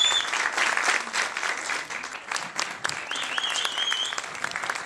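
Audience applauding, a dense round of clapping that is loudest at the start and eases a little after about two seconds.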